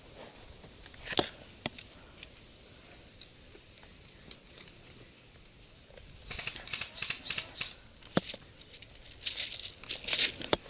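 Crunching and rustling of someone moving through dry leaves and brush, in two stretches in the second half, with a few sharp snaps or clicks, the loudest about a second in.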